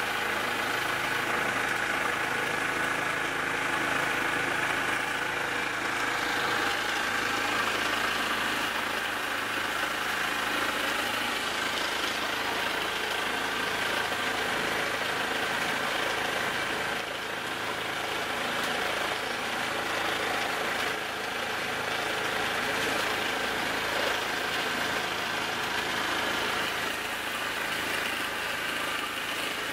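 Motorboat engine running steadily at cruising speed, a constant drone with a steady hiss of water and wind over it.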